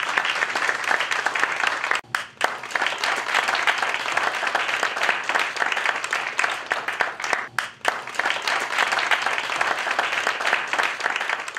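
Audience applauding, a dense steady clapping with a brief break about two seconds in.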